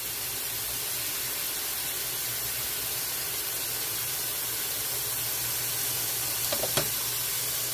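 Kitchen faucet running steadily into a bowl of black-eyed peas in a stainless steel sink, a constant hiss of pouring water as the peas are rinsed.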